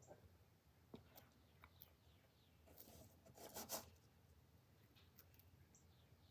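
Near silence: a few faint clicks and rustles of hands working a small syringe against a small metal part on a workbench, with a slightly louder rustle about three and a half seconds in.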